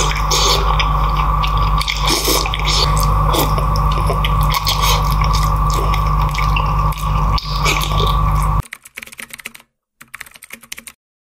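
Close-miked mukbang eating: a man chewing and smacking on sticky, gelatinous oxtail in peanut sauce, many quick wet mouth clicks over a steady low hum. About eight and a half seconds in it cuts off abruptly to a quiet stretch with only a few faint ticks.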